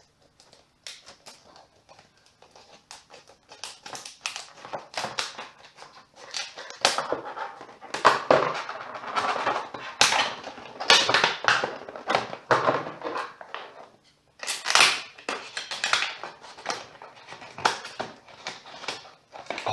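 Scissors cutting open a clear plastic blister pack, the stiff plastic crackling and snapping over and over as it is cut and handled.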